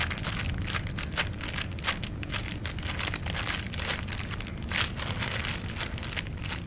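Irregular crackling and crunching, several clicks a second, over a low steady hum.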